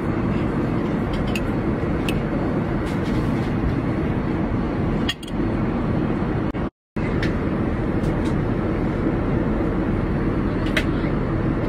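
Steady airliner cabin noise in flight, the even low rush of engines and airflow heard from a passenger seat, with a few faint clicks. It cuts out for a moment about two-thirds of the way through, then resumes unchanged.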